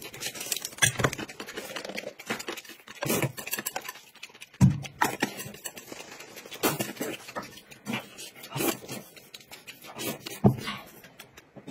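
Noodles being slurped and chewed close to the microphone, in a run of short, irregular bursts with a few louder slurps.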